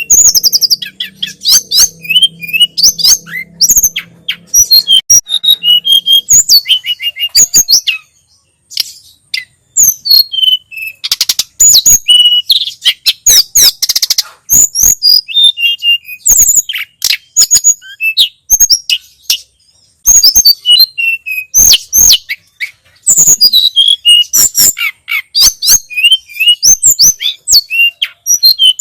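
Tledekan gunung (sulingan gunung, the Sunda robin) singing: rapid, varied high chirps and whistles in dense phrases, broken by short pauses about a third and two-thirds of the way through.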